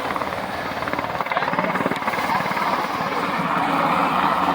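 Helicopter flying over, its rotor blades beating out a rapid, steady chop that grows slightly louder toward the end.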